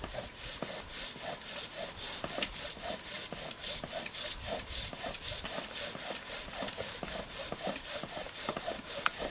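Bow drill being worked fast: the wooden spindle grinds in the notch of the wooden hearth board with an even rasping squeak, about five strokes a second as the bow saws back and forth. The friction is grinding out hot wood dust to build an ember in the notch.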